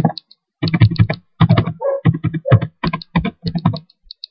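Typing on a computer keyboard: a quick, uneven run of keystrokes.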